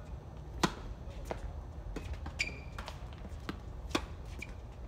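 Tennis ball struck by rackets in a doubles rally: sharp pops from the serve about half a second in and from a forehand near the end, with fainter hits and bounces from the far court in between.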